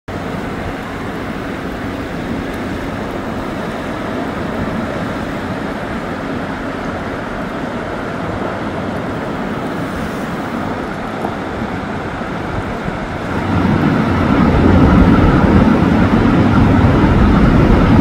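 Steady outdoor rushing noise with no distinct events, growing louder and deeper about three-quarters of the way through.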